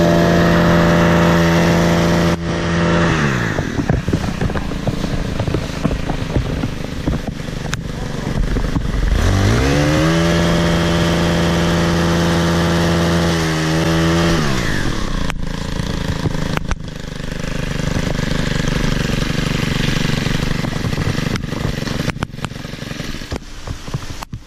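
Stihl KM 90 R power head driving an articulating hedge trimmer attachment. It runs at a steady full throttle, drops to idle about two and a half seconds in, revs back up to full throttle around ten seconds in, and holds there for about four seconds. It then falls back to idle for the rest.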